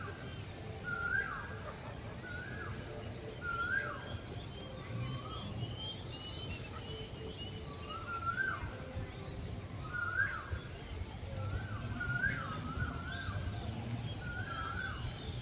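A bird calling over and over, a short rising-then-falling call every second or two, with fainter higher chirps above it and a low background rumble.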